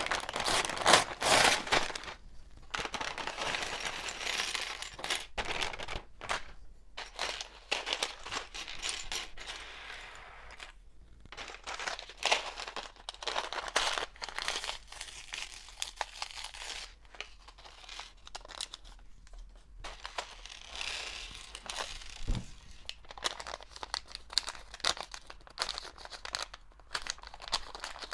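Crinkling of plastic parts bags and clicking of LEGO Technic pieces being handled during a build, in irregular bursts.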